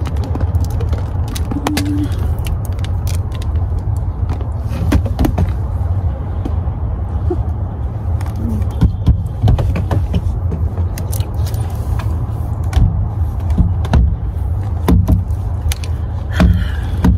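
Steady low rumble with scattered clicks and knocks as a handbag and a rolling suitcase with a telescoping handle are handled beside an open car door.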